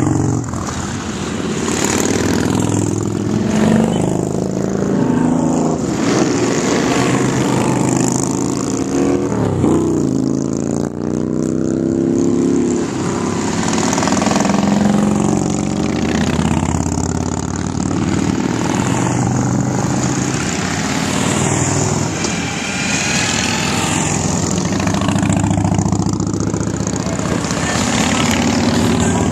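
A procession of cruiser and touring motorcycles riding past one after another, their engines running loud and continuous. The pitch swells and falls as each bike goes by and accelerates.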